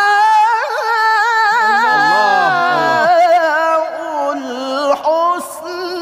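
A man's high voice reciting the Quran in the ornamented tilawah style, drawing out long melismatic phrases with a wavering vibrato. A lower man's voice calls out briefly about two seconds in. The recitation softens near the end, with a short breath before the next phrase.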